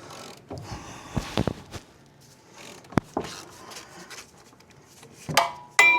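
Ball joint press being worked to push a ball joint out of a control arm: scattered metal clicks and knocks, a sharp click about three seconds in, and a metal clank that rings briefly near the end.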